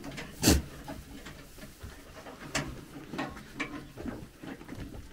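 Scattered clicks and knocks of wire and wood being handled as a wooden bar is wired onto a goat feeder basin, the loudest knock about half a second in.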